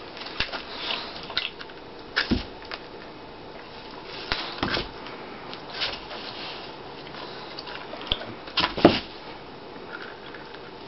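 A dog gnawing on a chew bone: irregular clicks and knocks of teeth on the bone, a few of them louder than the rest.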